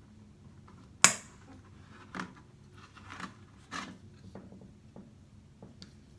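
Small hard plastic clicks and knocks from handling toilet flush-valve repair parts and a sealant tube in the tank: one sharp click about a second in, then several softer knocks and ticks.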